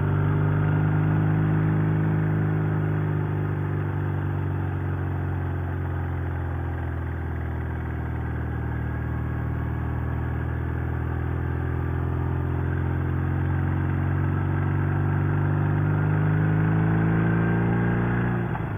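Sidecar motorcycle engine pulling in second gear: its note sags a little, then climbs steadily as the revs build. Near the end it breaks off briefly and comes back lower as the rider shifts up into third.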